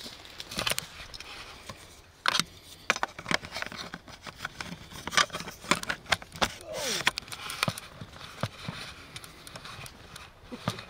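Dry leaf litter and sticks crackling, snapping and scraping as they are moved and stepped on, in irregular sharp clicks with rustling between. A short falling tone sounds about two-thirds of the way through.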